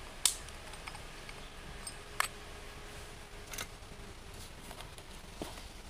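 A few sharp metallic clicks and taps as small parts of a disassembled overhead fishing reel are handled and set down in a steel parts tray. The loudest comes just after the start.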